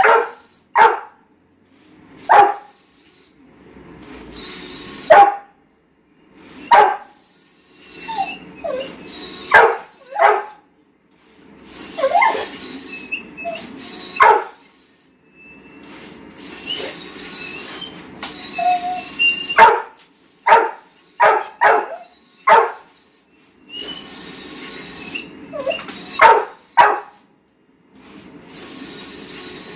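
Golden retriever barking repeatedly at a printing plotter, in sharp single barks and quick bursts of two or three, with a few short yips. Between the barks the plotter's mechanism runs with a steady whirring hiss that starts and stops in stretches.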